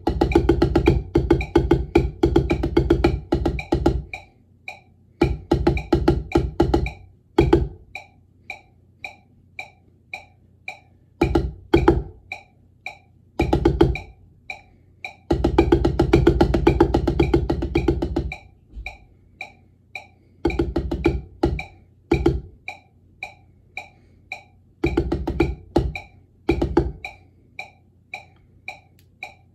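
Wooden drumsticks striking a Vater rubber practice pad. Passages of fast strokes lasting one to three seconds alternate with short gaps of a few single hits. A steady high click ticks about twice a second throughout.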